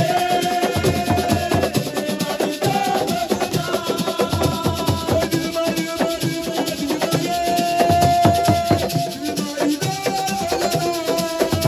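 Live assiko music: fast drumming with shakers rattling, and long held notes sounding over the beat.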